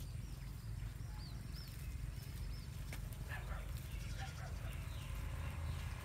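Goats browsing in leafy brush: leaves rustling and small twig knocks as they pull at the foliage, over a steady low rumble. A few faint high chirps sound in the first half.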